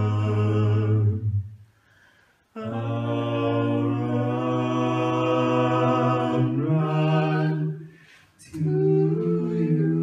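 Background music of long held chords that sound sung, breaking off briefly twice, about two seconds in and about eight seconds in.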